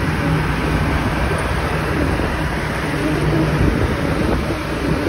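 Wind rushing over the microphone of a moving motor scooter, with a steady, low engine hum underneath.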